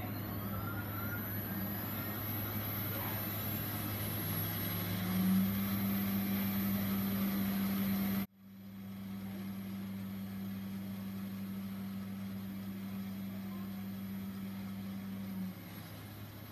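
Primix 40-40 Nanomixer running a cleaning cycle with about 20 mL of DI water in the cell: a steady motor hum with a low held tone. It breaks off sharply for an instant about eight seconds in, then the tone stops shortly before the end.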